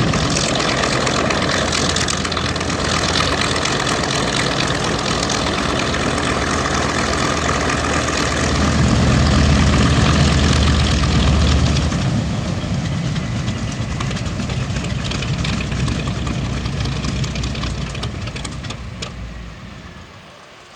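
Twin Wright R-2600 radial engines of a B-25 Mitchell bomber running, swelling louder for a few seconds midway, then fading away toward the end.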